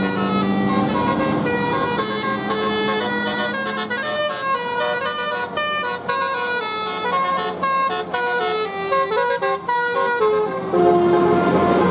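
Bus telolet horn playing a fast melody of short horn notes that step up and down in pitch, over a steady low hum.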